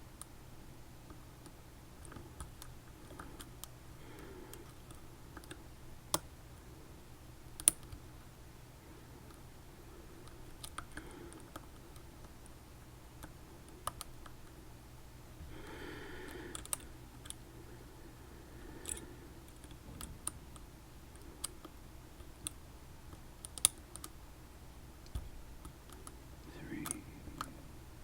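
A Mul-T-Lock Junior being picked: faint scraping of the pick on the pins, with scattered sharp clicks of metal on metal as pins and tension shift.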